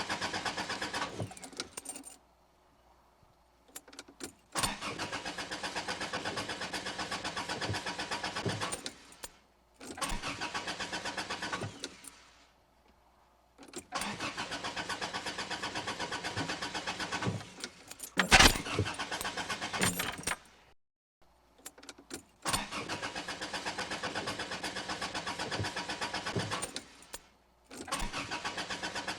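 Car engine cranking on the starter motor without catching, in about six attempts of a few seconds each with short silent pauses between; the car won't start. A single sharp thump sounds midway through one attempt.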